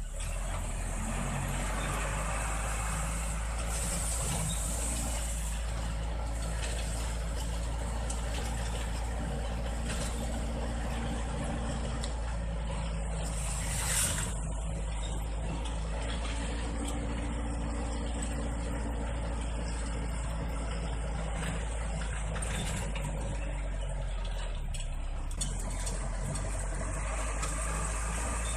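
Delivery truck's engine running steadily while driving through town streets, heard from inside the cab, with a short loud hiss about halfway through.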